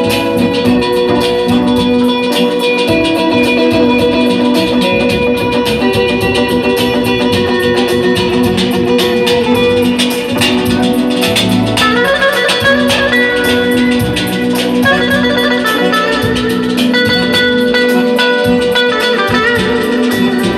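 Live Azerbaijani band music: an electric guitar leads a fast run of rapid notes over a steady held drone, with nagara drum and accordion accompanying.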